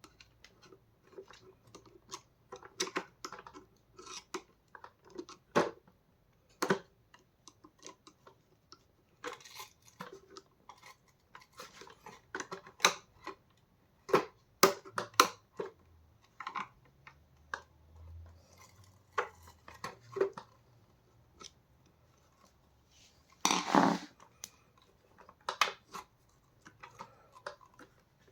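Hard plastic parts of a vacuum brush bar being handled and worked apart by hand: irregular clicks, taps and scrapes, with a louder half-second clatter near the end.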